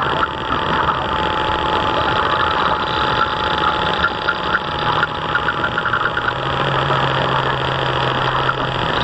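The drive of a radio-controlled model boat running steadily under way, heard from on board as an even mechanical running noise. A low hum comes in about halfway through and shifts slightly in pitch.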